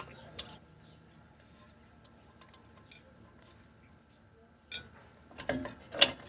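Metal tools and parts clinking and clanking during rear brake and axle work: a couple of sharp clinks at the start, a quiet stretch, then several clanks near the end, the loudest about six seconds in.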